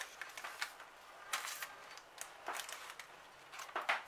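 Faint, scattered rustles and light scrapes from the springform cake tin and baking paper being handled, a few short ones spread through the quiet.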